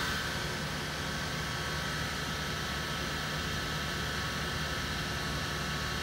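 Combustion blower fan of a Lochinvar Power-Fin water heater running steadily, a low hum with a thin high whine over it, the heater held in service mode.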